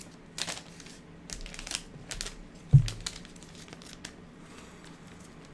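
Paper seal strips of an iPhone 12 Pro box being torn off: a few short crinkling rips, with one dull thump near the middle, the loudest sound.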